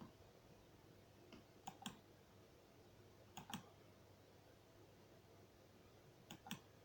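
Faint clicks in three quick pairs, like double-clicks of a computer mouse, over near-silent room tone.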